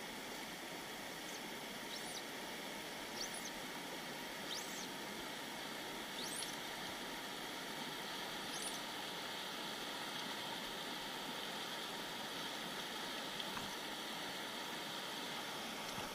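Shallow, stony river running steadily over riffles. A few short high squeaks come in the first half.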